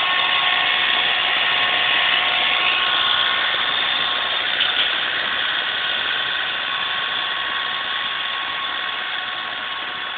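John Deere tractor's engine and its snowblower running steadily, with a constant whine over the blower's noise. It gets gradually quieter over the last several seconds.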